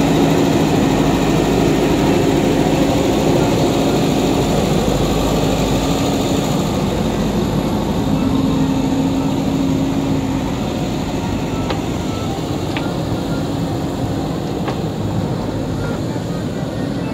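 Diesel engines of a Sonalika tractor and a JCB 3DX backhoe loader running steadily with a low drone, a little quieter from about ten seconds in, with three faint clicks near the end.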